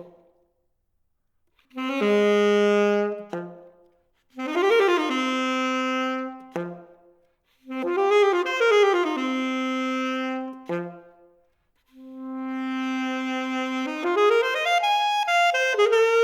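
Unaccompanied saxophone playing phrases of long held low notes broken by quick runs that rise and fall, with short pauses between phrases; the last phrase climbs in a rising run near the end.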